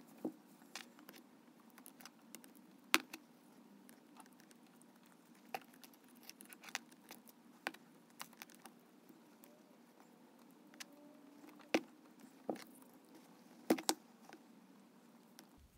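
Electrical tape being pulled off its roll and wound around a wire-nut splice on a power cord: irregular crackles and clicks, the sharpest about three seconds in and a cluster near the end.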